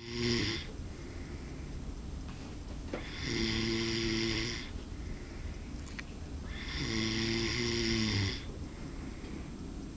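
A man snoring while asleep: the end of one snore at the start, then two long snores of about a second and a half each, roughly three and a half seconds apart, with quieter breathing noise between.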